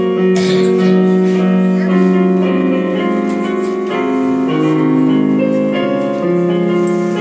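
Electronic keyboard playing sustained chords with a slow-moving melody.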